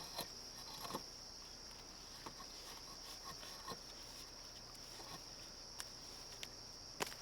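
A steady, high-pitched chorus of insects, with a few faint clicks and knocks as rope and climbing stick are handled while the half-hitch knot is pulled loose.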